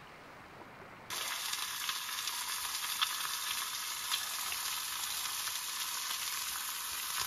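Sausages sizzling in a frying pan on a portable gas camping stove: a steady hiss with scattered crackles and a couple of louder pops, starting suddenly about a second in.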